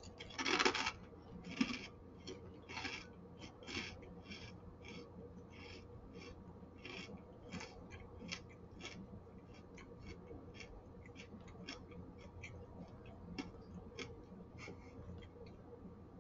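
Chewing crunchy twisted Japanese rice crackers (hineri arare): a few sharp crunches in the first four seconds, then softer, irregular crackles as the pieces are ground down.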